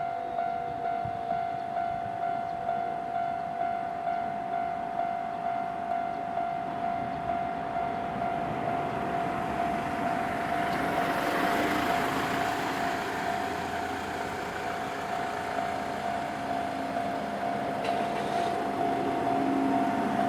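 Japanese level-crossing warning bell ringing steadily, about one strike every three-quarters of a second. From about nine seconds in, the rumble of a train builds over it as the train runs through the crossing.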